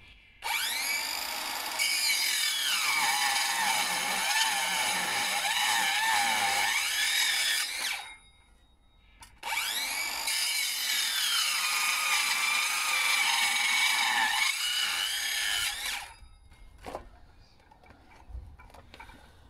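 Bosch 18V cordless circular saw with a fine-tooth blade making two crosscuts through a timber plank, each lasting about seven seconds with a short pause between. In each cut the motor whines up to speed, drops in pitch as the blade bites into the wood, then rises again as it cuts free. A light knock follows near the end.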